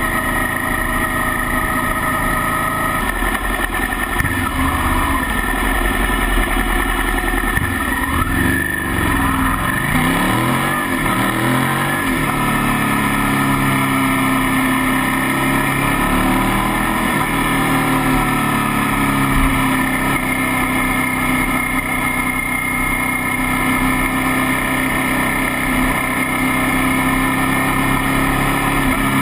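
Motorcycle engine running under way, heard from a camera mounted on the bike, with steady wind noise. Its pitch rises and falls a few times about eight to twelve seconds in, then holds steady.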